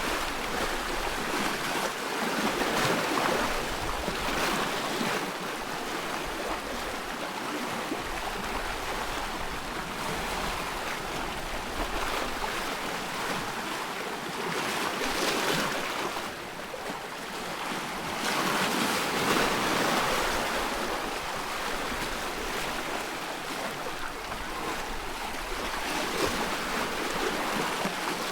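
Small waves lapping and washing on a loch, swelling and easing every few seconds, with wind rumbling on the microphone.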